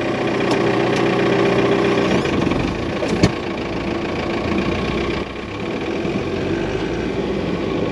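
Recovery tow truck's engine running under load on a slow, easy pull, rising over the first couple of seconds, then easing off about five seconds in. A single sharp knock about three seconds in.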